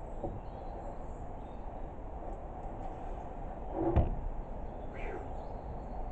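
A single sharp wooden knock about four seconds in as a timber rafter is set against the roof beam, with a fainter knock a second later, over a steady low background rumble.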